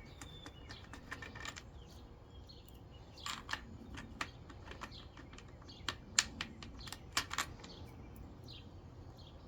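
Faint scattered clicks and light knocks of patio-furniture parts and assembly hardware being handled, with a few faint bird chirps in the background.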